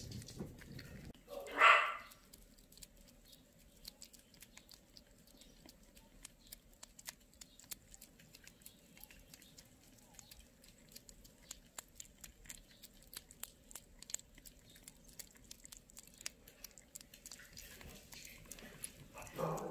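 Kittens lapping and chewing soft wet weaning food, a steady run of small wet clicks and smacks. About two seconds in comes one short loud cry, with a smaller one near the end.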